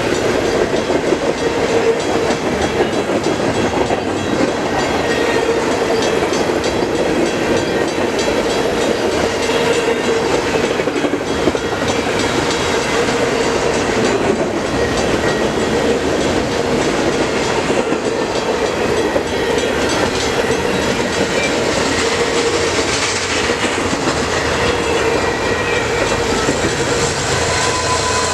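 CN intermodal freight train's cars rolling past at speed: a loud, steady noise of steel wheels on the rails.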